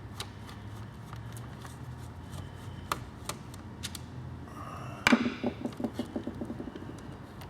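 Light clicks and taps of hand tools working on the screws of a small plastic RC truck chassis. About five seconds in comes a sharp clatter, followed by a rapid run of ticks that dies away over about two seconds.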